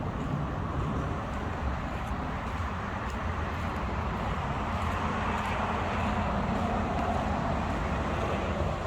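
Steady rumble of a running vehicle.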